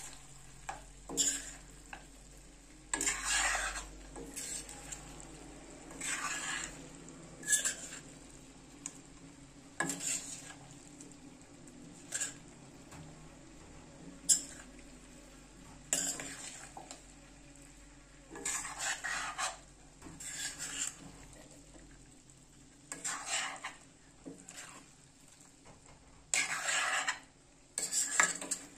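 A cooking utensil stirring and scraping a thick chicken offal curry around a metal pot in repeated strokes, about one every two seconds. Between the strokes the food sizzles faintly.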